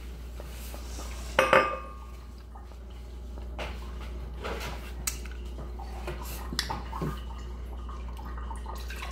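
Dishware clinking: one ringing clink about one and a half seconds in, then scattered light knocks and clinks.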